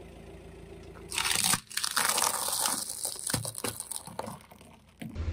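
Car tyre crushing plastic buckets filled with orange balls and dry pasta: a loud burst of plastic cracking and crunching starting about a second in, followed by scattered snaps and crackles that thin out and fade near the end.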